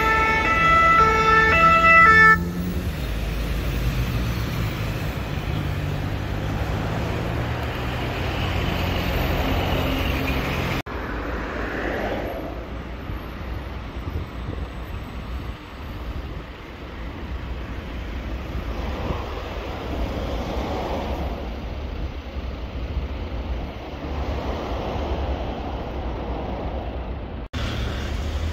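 Ambulance two-tone siren alternating between two pitches, stopping abruptly about two seconds in. After that, steady road traffic rumble with vehicles swelling past.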